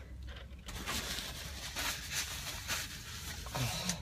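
Faint, irregular rustling and crinkling of handled fast-food packaging, over a steady low hum.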